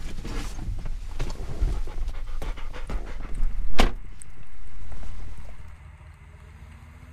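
A dog panting in quick, uneven breaths, with one loud knock a little under four seconds in, then a rush of noise that swells and dies away.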